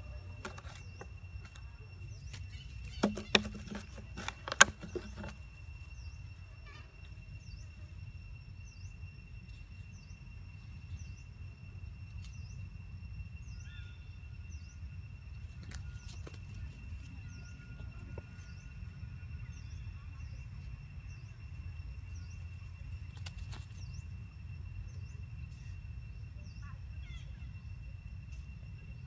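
Outdoor ambience: a steady high insect drone with small repeated chirps over a low wind rumble. A few sharp clicks come about three to five seconds in.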